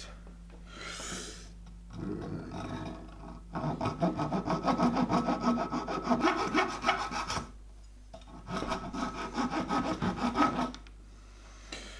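A hand tool cutting back and forth through a hard plastic dog bone in quick, rhythmic strokes. The strokes come in two runs with a short pause between them.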